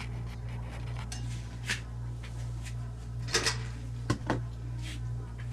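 Steady low electrical hum with a few short, faint clicks and knocks of handling scattered through it.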